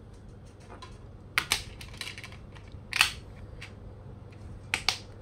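A few sharp clicks and taps from a plastic DVD case being handled, spread out singly and in pairs.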